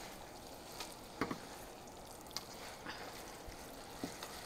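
Glass noodles being stirred through curry sauce in a stainless steel wok with two wooden spatulas: soft wet squishing with a few light clicks of the spatulas against the pan, over a faint steady sizzle on low heat.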